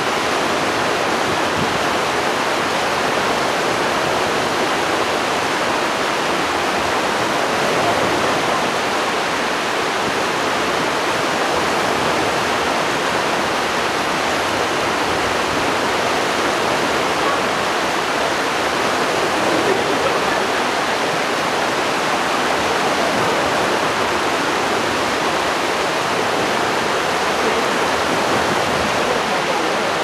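Snowmelt stream running, a steady rush and babble of flowing water.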